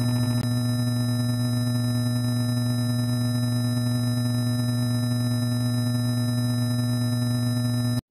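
A loud, steady electronic tone of many layered pitches, heaviest in the low range, holding without change and cutting off abruptly near the end.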